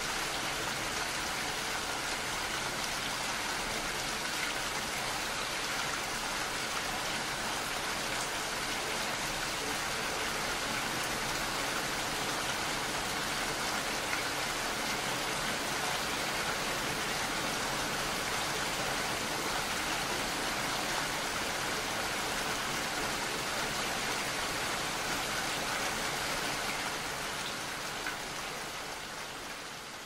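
Steady rain falling, an even wash of drops without a break, fading out near the end.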